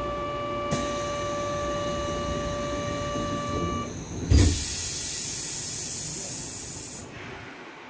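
Kyoto Subway 20 series train doors closing: a steady warning tone sounds for about four seconds, the doors shut with a thud, and a loud hiss of air follows for a couple of seconds.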